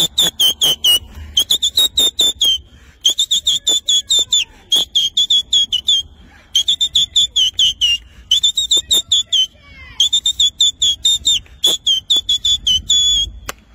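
A man whistling very loud, shrill stadium-fan whistles: rapid runs of short high notes, each dipping slightly in pitch, broken by short pauses between runs.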